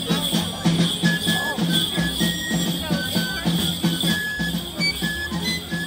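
Basque folk dance music with a steady beat and short high held melody notes, over the continuous jingling of bells strapped to the dancers' shins, shaken in time with their steps and kicks.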